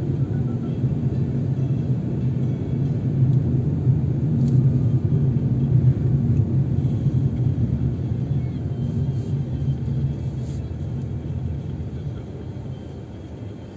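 A car's engine and tyres rumbling low and steadily while driving on a city street, getting quieter over the last few seconds as the car slows for traffic.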